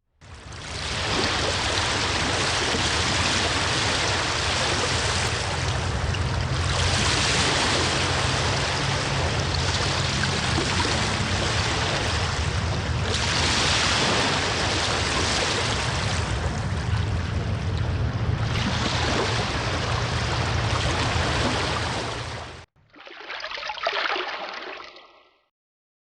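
Rushing water from a natural stream or surf, a steady loud wash that swells and eases every few seconds, then cuts off abruptly. A shorter, duller splashing water recording follows for a few seconds near the end.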